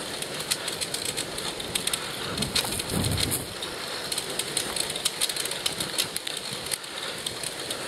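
Recumbent bicycle's tyres rolling over a rough, gritty paved path: a steady crackle with many small ticks and pops. There is a brief low rumble about three seconds in.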